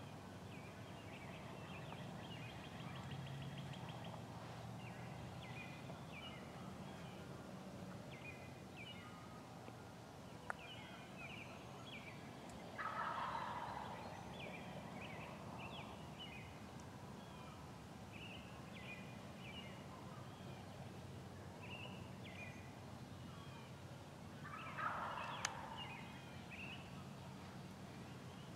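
Wild turkey gobbling twice, about a third of the way in and again near the end, faint and carrying from some distance. Short high chirping calls run underneath.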